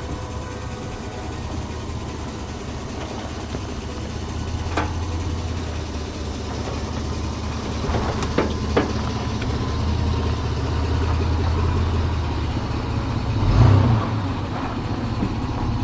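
Four-wheel-drive vehicle's engine running steadily and growing gradually louder as it drives over rough ground, with a few sharp knocks and a heavier thump near the end.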